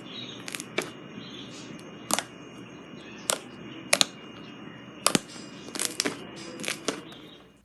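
Slime being pressed and poked by hand, giving sharp clicking pops at irregular intervals over a soft hiss; the sound stops suddenly near the end.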